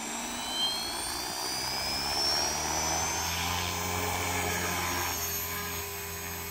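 Electric RC helicopter spooling up from rest: the motor and rotor whine rises steadily in pitch for about the first three seconds, then settles into a steady rotor drone as the helicopter lifts off into a hover.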